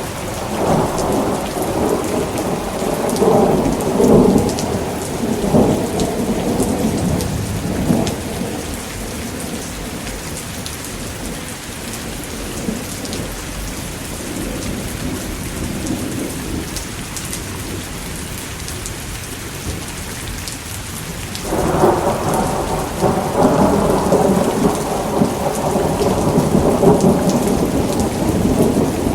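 Thunderstorm: steady heavy rain with rolling thunder. A long rumble swells in the first few seconds and dies away, and another breaks in suddenly about two-thirds of the way through and keeps rolling.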